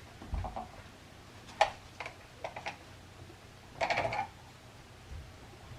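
Metal clicks and rattles of a Lee Enfield No.5 jungle carbine's box magazine being released and pulled out: a dull thump near the start, a sharp click about one and a half seconds in, a few lighter clicks, then a short cluster of rattling clicks around four seconds in.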